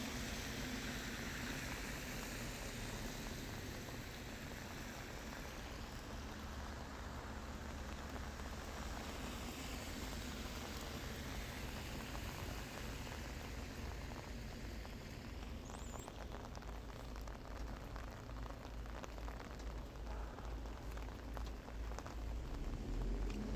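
Rain falling steadily, with a low rumble underneath. From about halfway, single drops tick out more clearly, and a low hum begins to rise near the end.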